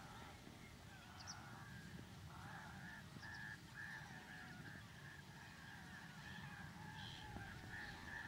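Distant birds calling: a run of short repeated notes, about two a second, starting about two and a half seconds in, over a low, steady rumble.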